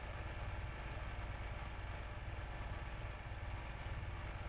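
Oil drilling rig machinery running with a steady, low engine drone.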